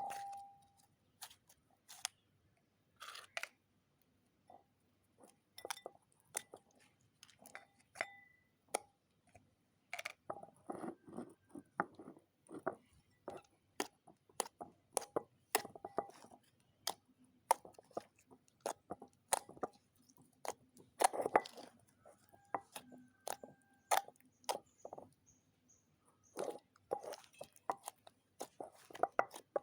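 Slime being squished and poked by hand, giving irregular sharp crackling pops and clicks, several a second, with a few quick clusters.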